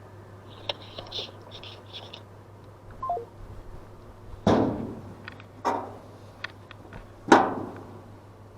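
Three loud knocks about a second apart, each with a brief ringing tail and lighter clicks between, as an evaporative cooler is handled for disassembly; faint high chirps about a second in, over a steady low hum.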